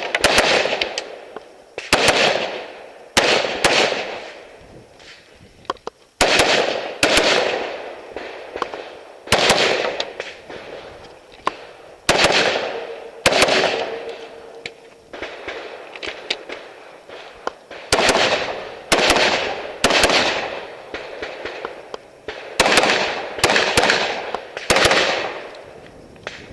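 AR-15 rifle in .223/5.56 firing about twenty loud shots during a timed course of fire: single shots and quick pairs roughly a second apart, each ringing out in a long echo. There is a pause of a few seconds about halfway through before the shooting resumes.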